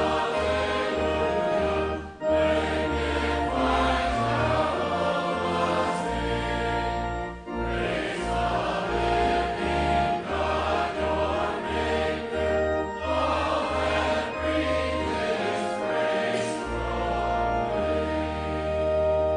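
Congregation singing a hymn with organ accompaniment, the organ holding steady low bass notes under the voices, with short breaths between lines about two and seven seconds in.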